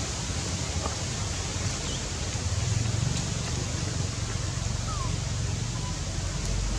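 Steady outdoor background noise: an even hiss with a low rumble underneath. A few faint, short whistle-like sweeps come through, one about two seconds in and a falling one about five seconds in.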